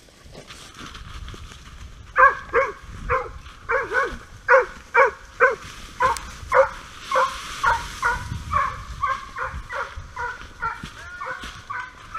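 Polish hounds (Gończy polski) baying in a steady string of loud barks, about two or three a second, starting a couple of seconds in: scent hounds giving tongue as they chase wild boar.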